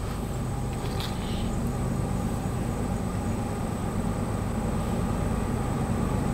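Diesel locomotive engines of an approaching train, a low steady rumble growing gradually louder.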